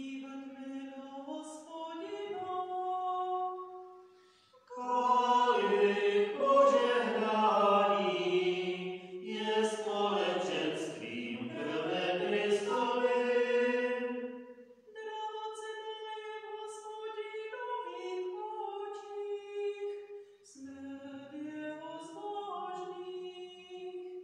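Liturgical singing of the responsorial psalm in Czech: a solo voice sings, then from about five seconds in a louder, fuller passage with several voices runs for about ten seconds, and a solo voice takes over again.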